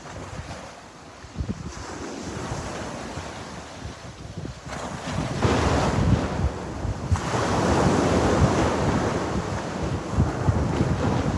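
Sea waves washing onto the shore, swelling about halfway through into a loud rush of surf, with wind buffeting the microphone.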